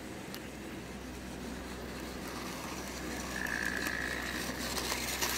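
A model Class 66 diesel locomotive hauling a train of model steam locomotives rolls along the track, a running rattle with clicks of the wheels that grows louder as the train passes. A brief high steady whine rises out of it a little past halfway.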